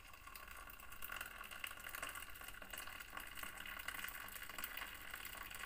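Hot water pouring in a thin, steady stream from a glass electric kettle into a glass cup of ground ginger and turmeric. The sound is a faint, even trickle.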